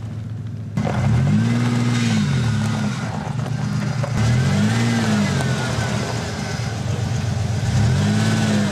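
Pickup truck engine revving up and dropping back in repeated swells as it pushes another car bumper to bumper. The engine starts abruptly about a second in.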